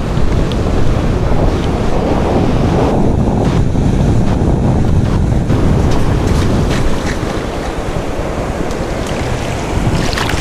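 Wind buffeting the microphone in a heavy low rumble over the wash of waves breaking on a beach, with a few faint clicks in the second half.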